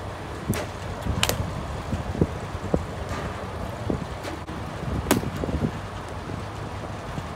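Sharp cracks of softball impacts in a batting cage, about half a second, just over a second and about five seconds in, with a few duller knocks between them, over a steady low rumble of wind on the microphone.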